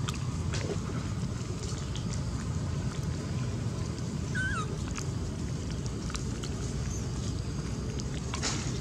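Baby macaques crowding a hand for food, with one short high squeak that falls in pitch about halfway through, over a steady low rumble.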